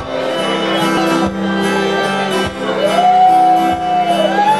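Fiddle and acoustic guitar playing a country-folk tune live. The fiddle slides up into a long held note about three seconds in over the guitar's steady chords, with a low thump roughly every second.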